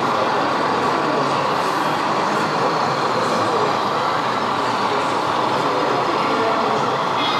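Steady hubbub of a busy hall, with many distant voices blended into an even din and no single sound standing out.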